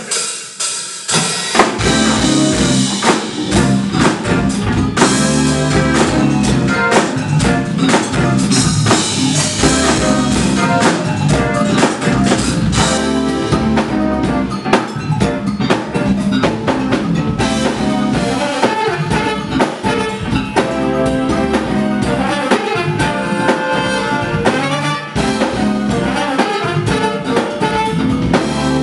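A live band playing with drum kit prominent, in a jazz style, starting loud about a second and a half in after a brief pause.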